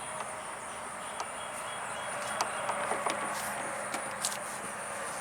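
A few light clicks and taps, spread out about a second apart, over a steady background hiss with a faint high-pitched whine.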